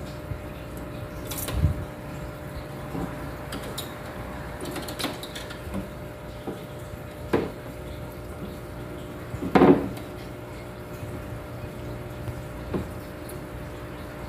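Submersible aquarium powerhead pump running with a steady hum as it drives a home-made gravel vacuum. Scattered knocks and clunks come as the vacuum is moved around the tank, the loudest about two-thirds of the way through.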